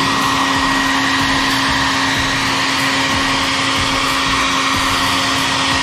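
Handheld hair dryer running steadily: a rush of air over a constant motor hum, used to heat a decal so it presses down flat.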